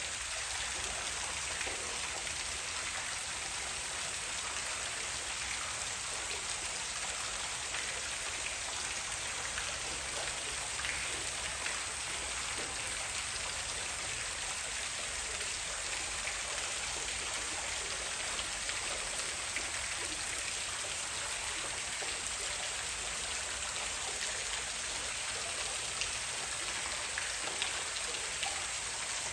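Steady rush and patter of water falling into a rock pool from a small waterfall.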